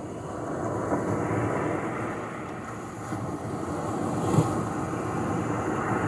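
Small waves washing onto a beach, the wash swelling and easing in slow surges, with one sharp click about four seconds in.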